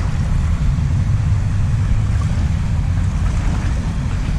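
Water swishing around waders as someone wades through a shallow river, over a steady low rumble of wind on the microphone.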